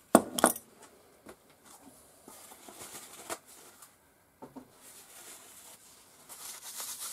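Metal parts clinking as they are set down on a workbench: two sharp clinks right at the start, then a few lighter taps and soft handling rustles.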